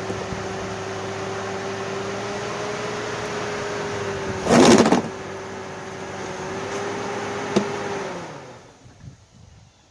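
A GMC Envoy's engine runs steadily at low speed. About halfway through there is a brief loud rush of noise, and a sharp click comes shortly before the engine shuts off, leaving it quiet near the end.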